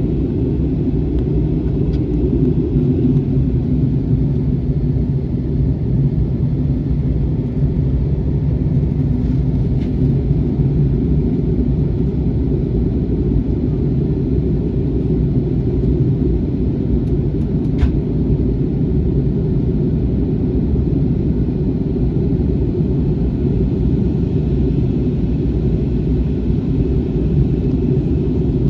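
Airbus A321 cabin noise on approach: a steady low rumble of engines and airflow, with a faint click about two-thirds of the way through.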